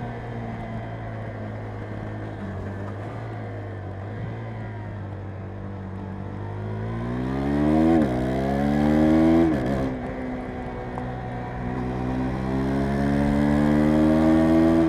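KTM 390 Adventure's single-cylinder engine running steadily, then revving up hard through two quick upshifts, the pitch dropping sharply at each shift, before climbing slowly again under acceleration.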